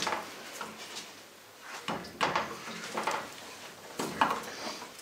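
Screw being driven by hand with a screwdriver through a thick cardboard tube into a wooden board: short, irregular creaks and scrapes as the screw bites and turns, the clearest about two seconds in, around three seconds and just after four seconds.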